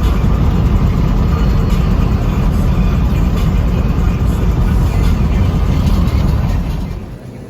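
Steady low rumble of a car on the road, which drops away sharply about seven seconds in.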